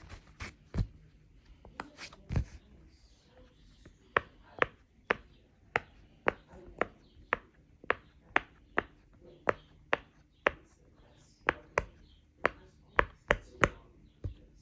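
A handheld fidget toy worked by the fingers, giving a string of sharp clicks. The clicks are irregular at first and settle to about two a second from about four seconds in.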